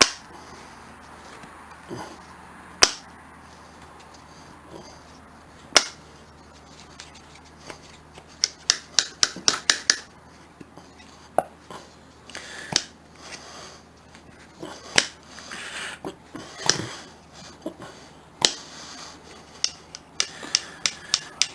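Rusty pliers, loosened with WD-40, being worked open and shut: sharp metal clicks of the jaws and pivot, scattered at first, then a quick run of them partway through.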